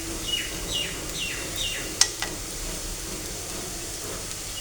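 Low sizzling of spices frying in ghee in a pan, with four short high chirps, each falling in pitch, in the first two seconds, and a single sharp click about two seconds in.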